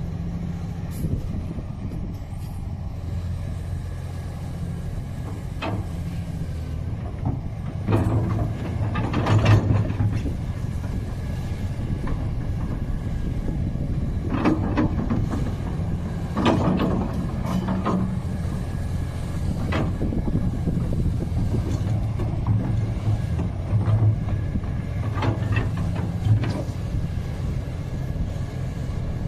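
Hitachi ZX890 crawler excavator's diesel engine running steadily, with repeated louder surges as the engine takes load while the hydraulics swing the boom and curl the bucket. There are a few sharp clanks.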